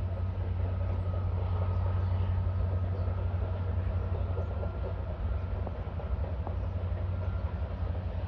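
A train rumbling and clattering along the rails as it approaches, a steady deep rumble with dense rattling.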